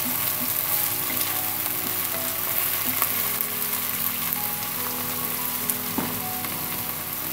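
Freshly sliced raw onions frying in hot oil in a nonstick pan, a steady sizzle, stirred by a wooden spatula that knocks faintly against the pan now and then.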